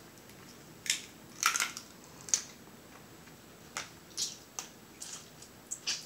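Snow crab legs being eaten: an irregular run of sharp, short crunching clicks and cracks, about nine of them, as the shells are worked open and the meat is picked and sucked out.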